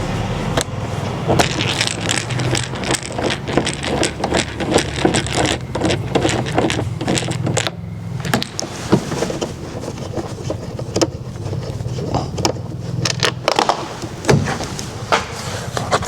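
A screwdriver with a T30 Torx bit working screws out of a plastic door panel: a run of small irregular clicks, taps and scrapes, over a low steady hum that fades out near the end.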